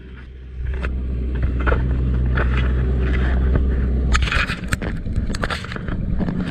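Mariner outboard motor on a small fishing boat running with a low, steady hum, water washing along the hull. The hum stops about four seconds in, followed by a run of sharp knocks and scrapes.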